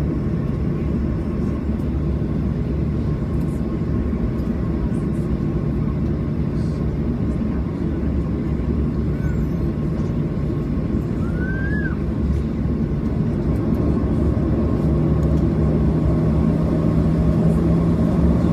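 Steady low rumble and hum of a Boeing 737-700's jet engines heard from inside the passenger cabin, with a low hum growing louder near the end.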